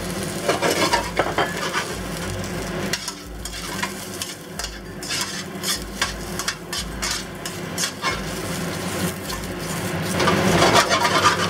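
Sliced fresh shiitake mushrooms and garlic sizzling in hot oil in a pan, with metal tongs clicking and scraping against the pan as they are stirred and tossed. It gets louder near the end as the pan is tossed.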